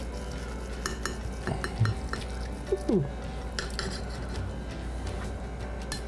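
Serving utensil scraping and clinking against a crockpot and a plate while tender pork roast is scooped out, with several sharp clinks over a steady low hum.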